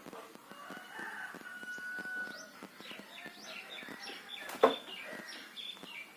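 A rooster crows once, a drawn-out call of about two seconds. It is followed by a run of short, high, rising bird chirps, and a single sharp knock comes about four and a half seconds in.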